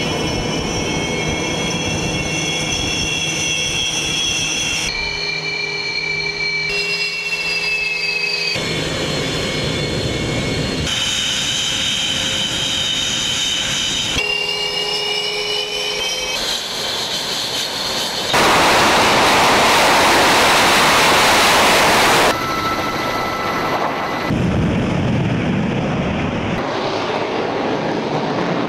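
Su-33 Flanker twin jet engines running, a steady high whine over rushing noise that changes abruptly every couple of seconds. A much louder, even rush of jet noise lasts about four seconds a little past the middle.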